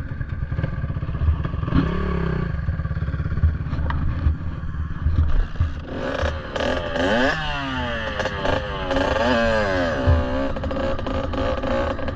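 Kawasaki KX65's small two-stroke single-cylinder engine running at low revs, then from about six seconds in revving hard in repeated rising and falling sweeps as the bike pulls away and shifts up through the gears.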